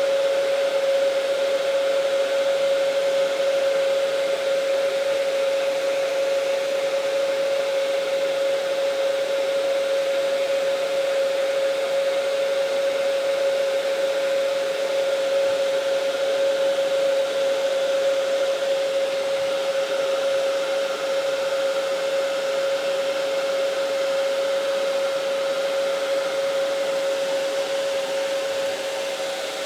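Hair dryer running steadily, a constant whine over the rush of air, heating adhesive grip tape so it conforms to a pistol frame.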